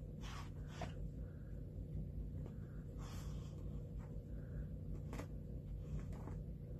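Dog chewing and mouthing a plush toy on a blanket: faint, scattered rustles and soft clicks.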